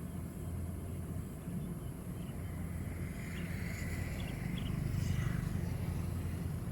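Rice combine harvester's engine running steadily as a low hum, swelling slightly about five seconds in, with a few short high chirps over it in the middle.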